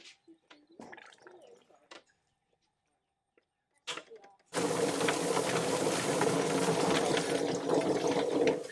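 Stainless steel drum chicken plucker running, its spinning floor tumbling scalded broiler chickens against the rubber fingers while a hose sprays water into the drum. It starts suddenly about halfway through, with a steady hum under the rushing and slapping, and cuts off just before the end. Before that there are only faint handling clicks.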